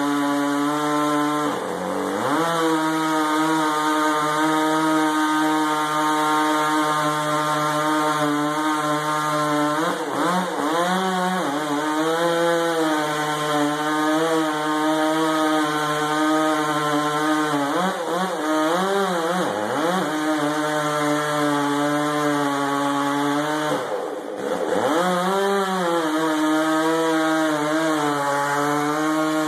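Chainsaw engine running hard and continuously while cutting timber. Its pitch dips briefly and recovers several times: about two seconds in, around ten to twelve seconds, around eighteen to twenty seconds, and again about twenty-four seconds in.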